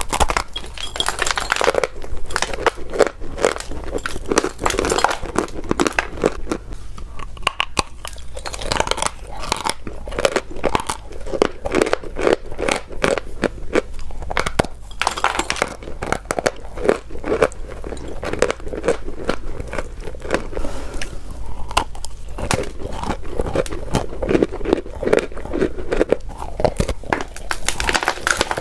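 Close-up biting and chewing of sweet chalk: a dense, uneven run of dry crunching and crackling that goes on throughout.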